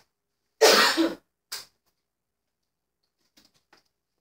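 A person coughing to clear a scratchy throat: one hard cough of about half a second, then a short second one.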